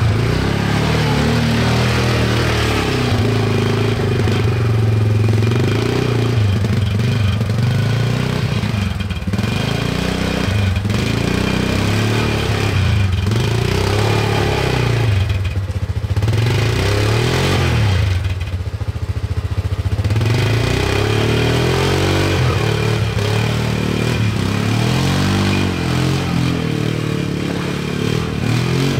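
Quad bike (ATV) engine revving up and down under load as it climbs a steep rocky track, its pitch rising and falling again and again and easing off briefly a few times.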